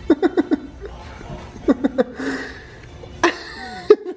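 Laughter in short, rhythmic 'ha-ha' bursts, once at the start and again about two seconds in, with a brief louder vocal outburst a little past three seconds.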